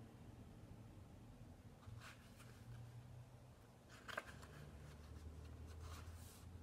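Faint rustling of paper as the pages of a colouring book are handled and turned, with a sharper crackle about four seconds in, over a low room hum.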